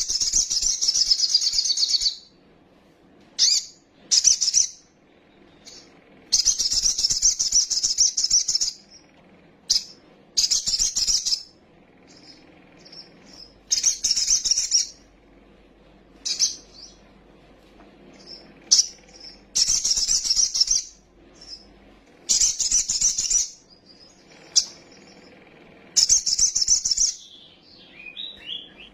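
Sunbird-family songbird (Indonesian 'kolibri') singing in repeated bursts of high, rapid chattering, each one to two seconds long with short pauses between. It is a lure song meant to provoke caged birds into singing.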